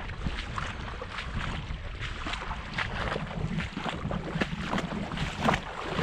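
Creek water running and splashing, with wind rumbling on the microphone.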